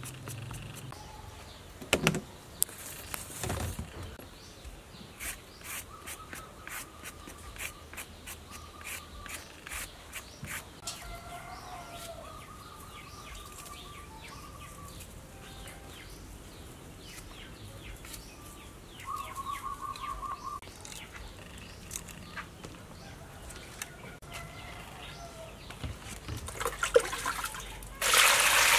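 A small knife peels a green vegetable in short scraping strokes, with a couple of knocks near the start. Birds chirp now and then in the background. Near the end, water pours loudly onto leafy greens in a metal bowl.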